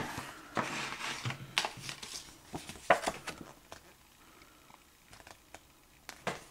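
A Blu-ray case and its paper insert being handled: rustling paper and light clicks for about the first three seconds, then quieter, with a few faint clicks near the end.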